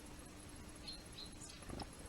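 Faint short high chirps of small birds, two about a second in, then a soft low rustle or thump near the end.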